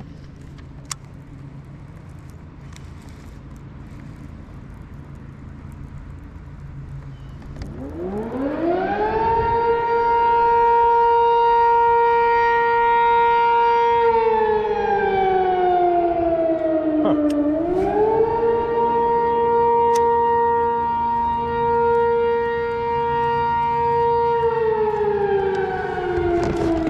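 Outdoor warning siren winding up about eight seconds in, holding a steady wail, sliding down in pitch, then winding back up and holding again before falling once more near the end. The angler takes it to be a warning that the river behind him is rising.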